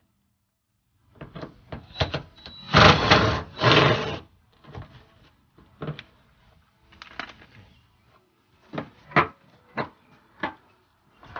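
Clicks and clatter of hand tools working on the bumper's mounting bolts, with two short rasping bursts about three and four seconds in and scattered single clicks after.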